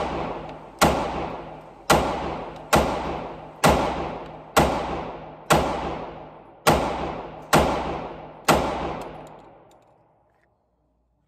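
A small handgun fired nine times at about one shot a second. Each sharp report rings out and dies away in the room's reverberation, and the firing stops near the end.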